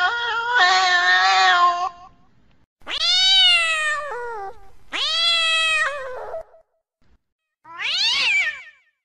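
Female cat in heat yowling (caterwauling): a long call that ends about two seconds in, then three more drawn-out yowls, each rising and then falling in pitch, the last one shorter, with a falling glide.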